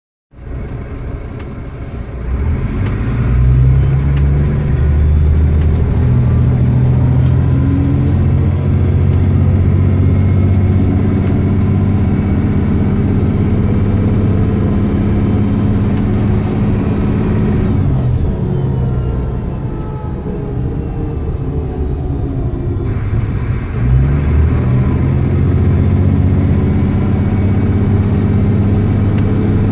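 DAF DB250LF Lowlander double-decker bus engine heard from inside the passenger saloon, running under load with a steady rumbling note. The revs build over the first few seconds. The note sinks away around eighteen seconds in as the bus eases off, then climbs again a little before twenty-four seconds as it accelerates.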